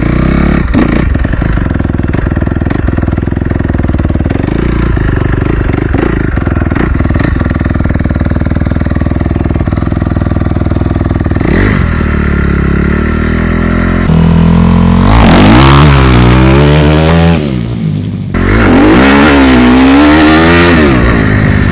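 2016 Honda CRF250R single-cylinder four-stroke engine, bone stock, running at steady low revs with one short blip. Then it gets louder, the revs rising and falling as the bike is ridden hard, with a brief drop off the throttle before it pulls up again near the end.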